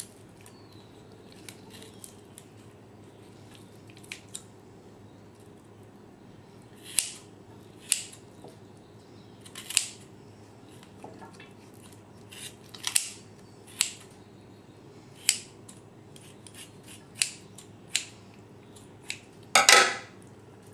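Kitchen shears snipping along the backbone of a raw chicken: irregular crisp snips, one every second or so, with a louder clatter near the end as the shears are set down in the metal roasting pan.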